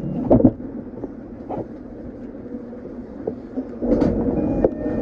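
Running noise of an E233-series EMU heard aboard motor car MoHa E232-3619, rolling at low speed with sharp knocks about half a second in, at about a second and a half and near three seconds. About four seconds in a louder rumble with a steady hum and more knocks sets in.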